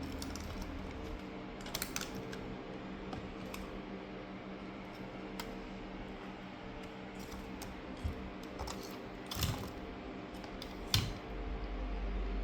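Scattered light plastic clicks and taps from laptop parts being handled and pried, a few seconds apart, over a steady low hum.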